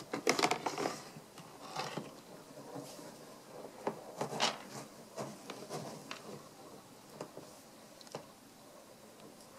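A cat scratching and digging in pelleted litter in a plastic litter box: short, irregular scratchy rustles and rattles of the pellets, one every half second or so, loudest in the first second and again about four and a half seconds in.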